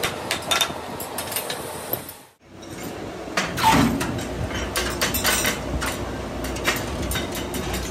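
Metal clinking and clanking as steel tongs handle a freshly cast piston on the casting die. After a short break, the piston hits a tank of water with a splash, the loudest sound, followed by more scattered metallic clinks.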